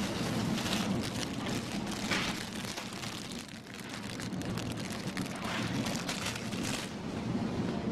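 Supermarket background noise: a steady low rumble with scattered brief crackling rustles.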